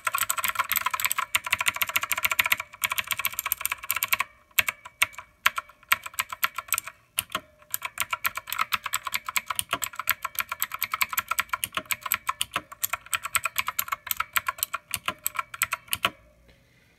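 Fast typing on a Redragon Kumara mechanical keyboard fitted with black HK Gaming pudding keycaps and no O-rings: a rapid, continuous clatter of keystrokes. It breaks briefly a couple of times in the first few seconds and stops about a second before the end.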